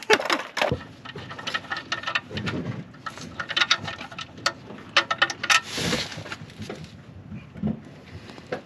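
Irregular light clicks, clinks and clatter of hand tools and parts being handled, with a short rush of noise about six seconds in.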